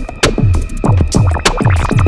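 Electronic background music with a steady beat, made of rapid, repeated falling-pitch sweeps several times a second.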